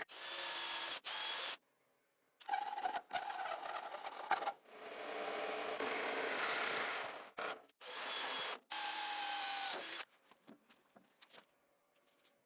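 A small electric power tool working on a workpiece, switched on and off in a series of short bursts with one longer run of a couple of seconds mid-way; each run carries a steady motor whine over a rasping noise. It stops about ten seconds in, leaving only a few light taps.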